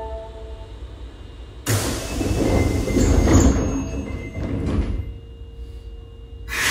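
Osaka Metro 22 series subway train's doors sliding shut: a sudden rush of noise starts about two seconds in and lasts about three seconds. Another sudden burst of noise follows near the end.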